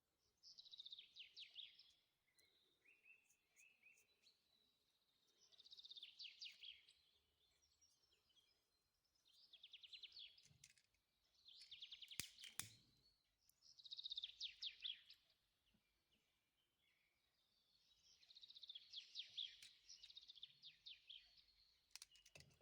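Faint songbird song: short, rapid trilled phrases repeating every few seconds. A sharp click sounds about twelve seconds in and another near the end.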